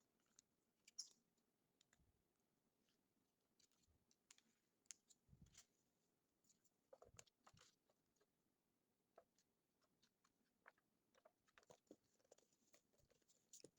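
Near silence, broken by faint scattered clicks and soft crinkly rustles of hands handling books and their packaging.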